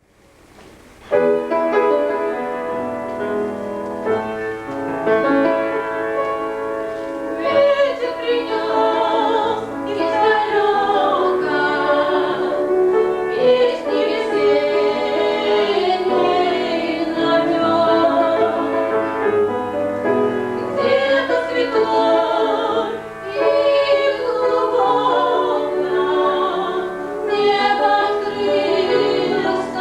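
Two women singing a Russian song setting of a poem as a duet with instrumental accompaniment; the music starts about a second in.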